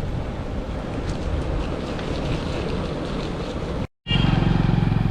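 Wind rushing over the microphone on a moving motorcycle. About four seconds in the sound cuts out for a moment, then a motorcycle engine is heard running steadily up close.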